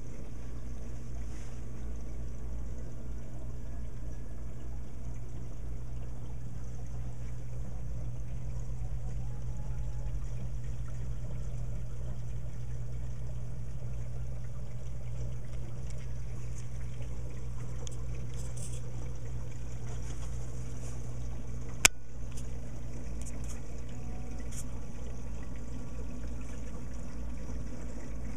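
Reef aquarium's running equipment: a steady low hum with water trickling and splashing, as from the pumps and overflow. One sharp click about three quarters of the way through.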